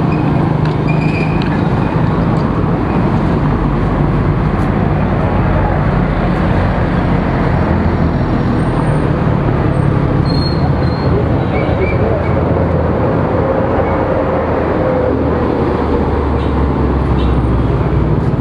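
Steady city street traffic noise: motorbike and car engines running and passing, a continuous even rumble with no single event standing out.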